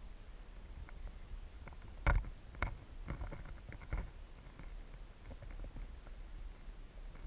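Underwater sound heard through an action camera's waterproof housing on a gravel streambed: a steady low rumble of flowing water, with a cluster of sharp clicks and knocks about two to four seconds in, the loudest about two seconds in.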